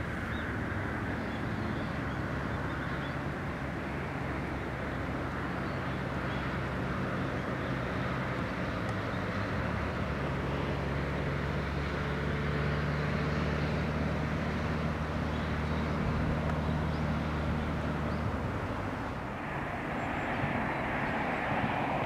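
Distant engine drone: a steady low hum with a few held tones, fading out near the end.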